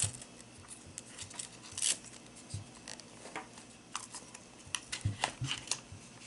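Hands taking a 3S battery pack out of the front battery tray of an Axial SCX10 II RC crawler: scattered small plastic clicks and rustles, with a quick run of them about five seconds in.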